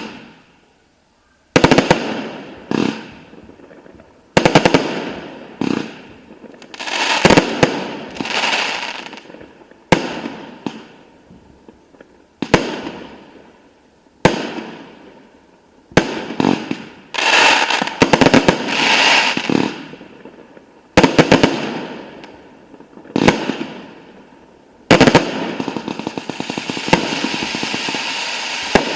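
Aerial fireworks display: a string of sharp shell bursts, one every second or two, each dying away over a second or so. About four seconds before the end the bangs give way to a continuous dense crackling.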